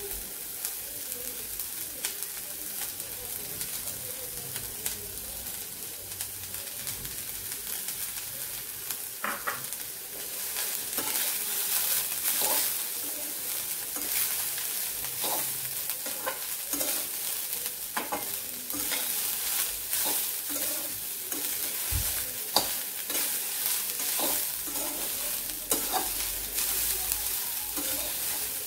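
Shredded cabbage sizzling in hot oil in a metal kadhai, with a steel spatula stirring and scraping against the pan in frequent clinks. The sizzle and the stirring grow louder about ten seconds in.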